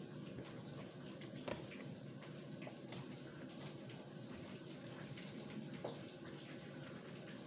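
Coated chicken pieces frying in hot oil: a faint, steady sizzle with scattered small crackles.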